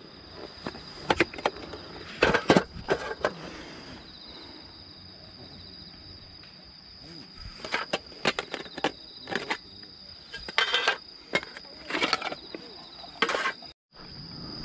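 Insects calling on a steady high note, with repeated knocks and clatter of metal camp cookware being handled.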